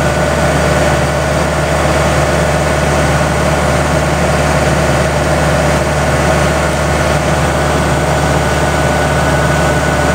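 Kubota combine harvester running steadily, a loud, even drone with a steady whine over it, while its grain-unloading auger is swung out over a tractor trolley.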